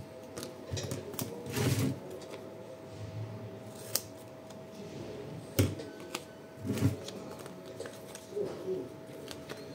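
Scattered clicks, snips and rustles of hands working on a drill battery pack, with sharp clicks about four, five and a half and seven seconds in, over a faint steady hum.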